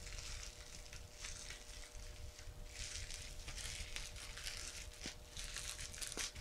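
Plastic courier packaging crinkling and rustling in irregular bursts as it is handled and opened by hand.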